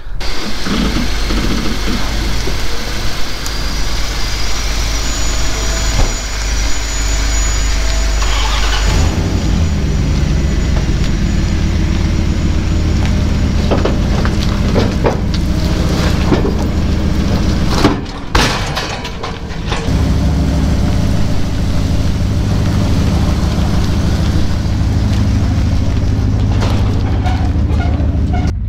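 Pickup truck engine running at idle, its low steady hum coming in strongly about nine seconds in, with a few sharp knocks in the middle.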